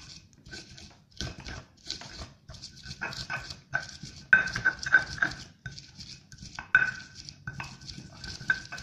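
Stone pestle grinding chilies, shallots and garlic against a stone mortar (ulekan on cobek), pushed hard to make a fine spice paste: steady scraping strokes about two a second, many with a short squeak of stone on stone.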